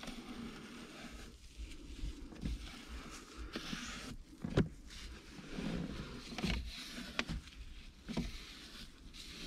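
A paper wipe scrubbing grime off the plastic console around a manual gear lever: stretches of rubbing and scuffing, broken by a few light knocks, the sharpest about four and a half seconds in.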